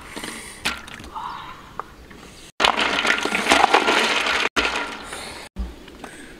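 Liquid from a coconut pouring and splashing into a wok of water for about two seconds near the middle, with a few light knocks before it.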